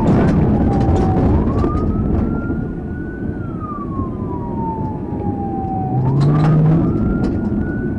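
Police siren in wail mode, rising and falling slowly, twice climbing and twice sinking, over the loud engine and rough-ground rumble of a vehicle driven fast across a plowed dirt field, with scattered knocks and bangs.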